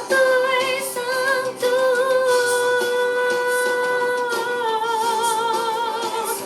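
A woman's voice singing a wordless gospel vocal run: a quick ornamented turn, a long held note, then a step down to a slightly lower note sung with vibrato.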